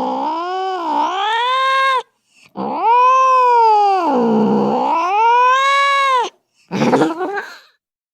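Angry cat yowling: two long drawn-out yowls that sag in pitch and rise again, the second lasting about four seconds, then a short harsh cry near the end.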